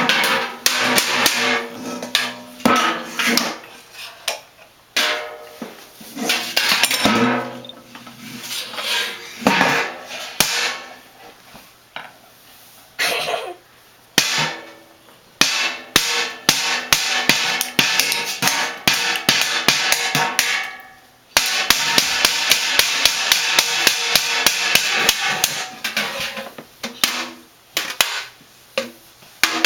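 Children banging on something that rings with pitched notes, such as a toy percussion instrument: uneven clusters of strikes, then, a little past twenty seconds in, a fast run of several strikes a second lasting several seconds.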